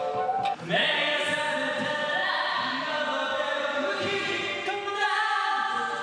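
Music: a few pitched instrumental notes, then from an abrupt cut about half a second in, several voices singing long chant-like notes together.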